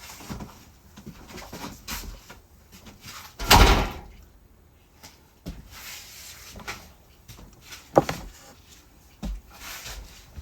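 Bumps, knocks and clicks of hard objects being handled. The loudest is a rough scrape about three and a half seconds in, with a sharp click near eight seconds.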